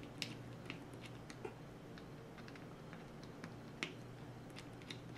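Faint, irregular small clicks of a Torx driver turning small screws out of a Spyderco Endura 4's orange FRN handle scale, over a low steady hum.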